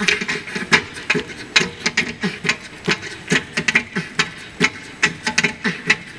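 Noise of a large crowd, with many irregular sharp clicks and snaps several times a second over a general din of voices.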